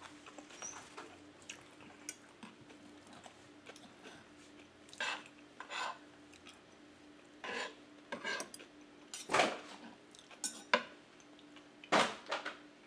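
Metal spoon and fork scraping and clinking against a wooden plate in a string of short, irregular strokes while pieces of vegetable pancake are cut and gathered up.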